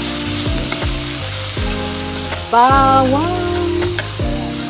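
Minced garlic sizzling in hot oil in a stainless steel wok, stirred with a metal spatula. Background music with deep, repeatedly dropping bass notes runs underneath, with a short melodic phrase about halfway through.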